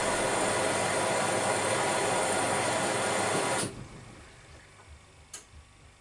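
AEG Lavamat Protex L72475FL washing machine taking in water: a steady rushing hiss of water filling the machine, which cuts off suddenly about three and a half seconds in. A quiet pause follows, with a single click near the end.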